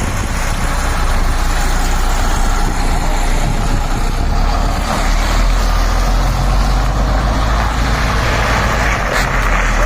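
Heavy truck engine running steadily, a deep low rumble that swells somewhat in the middle.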